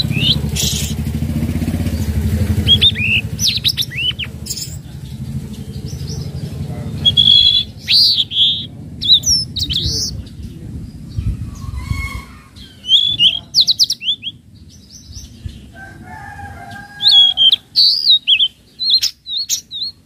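Caged tledekan laut singing phrases of short, quick chirps and whistled notes, with pauses between them. A low engine rumble runs underneath for the first half and fades out about twelve seconds in.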